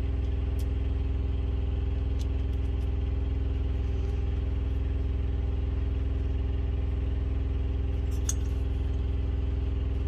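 Diesel truck engine idling steadily, a low even hum heard from inside the cab. A few faint clicks come over it, a little after the start and again near the end.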